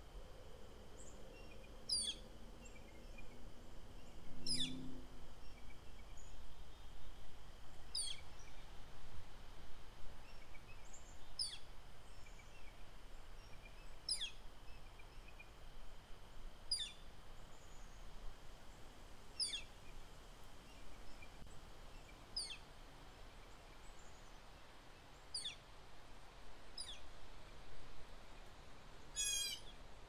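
A songbird giving a single sharp note that falls steeply from high to low about every three seconds, then a quick run of repeated falling notes near the end. The bird is heard over a steady rush of wind noise.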